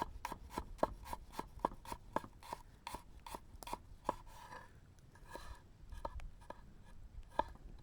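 Knife slicing a garlic clove thinly against a cutting board, a quick even run of knocks about four or five a second, then a brief pause and a few slower cuts.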